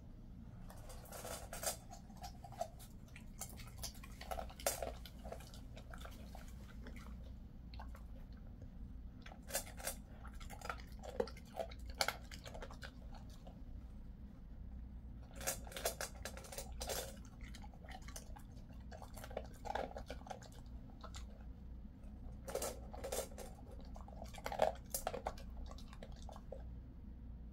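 Jindo mix dog crunching dry food pieces from a stainless steel bowl, in bouts of crunchy chewing a second or two long with pauses of a few seconds between them.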